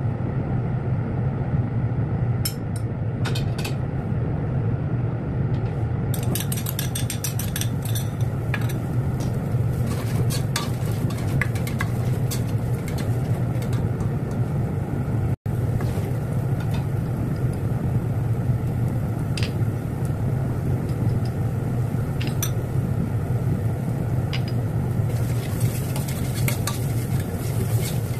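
Chopped onions sizzling in hot oil in an enamel pot while a spoon stirs, clinking and scraping against the pot; the sizzle starts about six seconds in and grows stronger near the end. A steady low hum runs underneath.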